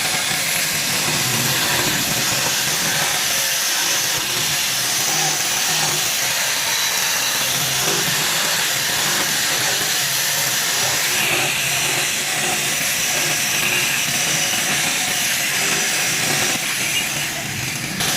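A power tool working wood, running steadily with a hissing noise. It eases briefly about a second before the end.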